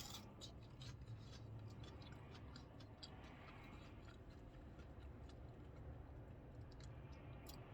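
Faint chewing with small scattered clicks and crackles as a fried jalapeño cheddar bite is eaten, over a low steady hum.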